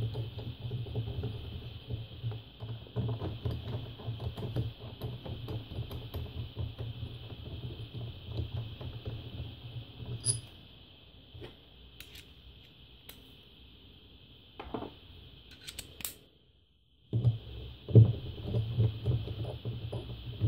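Metal parts of a disassembled electric power steering pump being handled and turned by hand: a run of small clicks, clinks and rubbing noises, quieter in the middle, cutting out briefly near the end.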